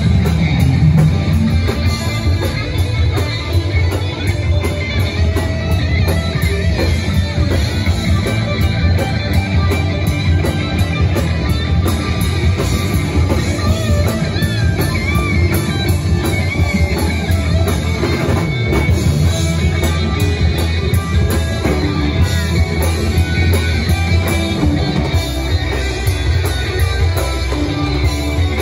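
Live rock band playing loud: electric guitars over a drum kit, heard from the crowd.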